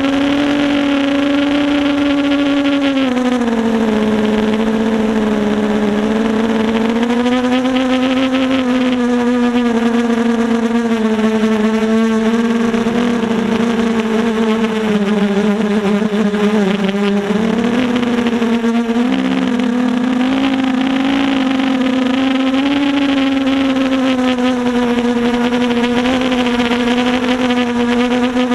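Brushless motors and propellers of a 250-size FPV quadcopter whining steadily, heard from the onboard GoPro Hero3, the pitch sliding up and down as the throttle changes, with a brief wobble a little past halfway. The recording plays at double speed, so the whine sounds higher than in flight.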